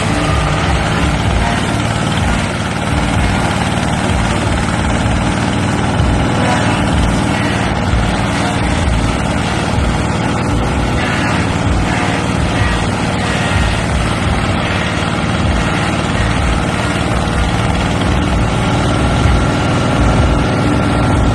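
Oil palm frond chopping machine running: a steady mechanical drone with no pauses.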